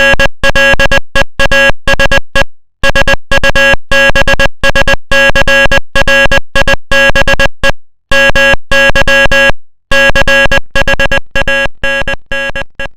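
Morse code sent as a loud, buzzy electronic tone keyed on and off in short and long beeps, with silent gaps between letters. The beeps fall in loudness near the end.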